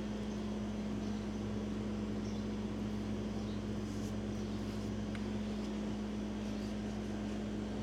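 Steady low mechanical hum with one constant tone, unchanging throughout, with a few faint light ticks over it.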